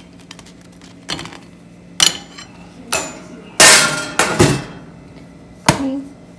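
Kitchen clatter as dishes and utensils are handled on a stone counter: about six separate knocks and clinks, the loudest a longer rattling clatter just past the middle.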